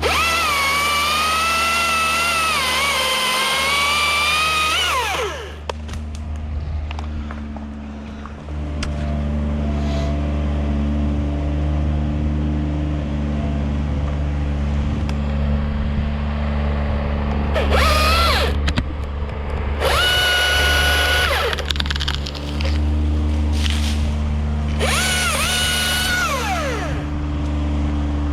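Husqvarna T540iXP battery top-handle chainsaw revving in bursts: a long cut of about five seconds at the start, then several shorter bursts later on. Each is a high whine that drops away as the trigger is let go. A steady low engine hum runs underneath.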